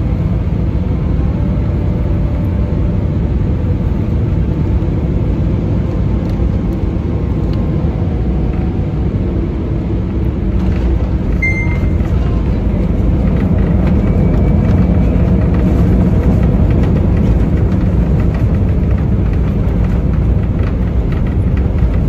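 Airbus A319 cabin noise during landing: a steady low rumble of engines and airflow, which grows louder from about halfway through as the airliner touches down and rolls out on the runway with its ground spoilers raised.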